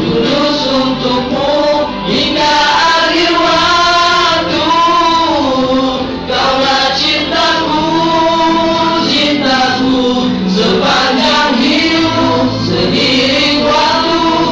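Male nasyid vocal group singing in harmony into microphones, several voices moving together in one continuous phrase.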